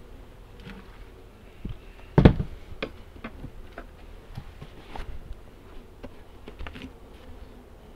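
Wooden beehive equipment being handled: scattered knocks and clicks of frames and boxes, with one loud knock about two seconds in.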